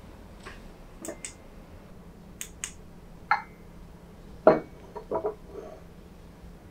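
White porcelain cup and saucer set down on a wooden table: a solid knock about four and a half seconds in, then two or three light clinks of cup against saucer. Before it come a few faint ticks and a single short ringing clink.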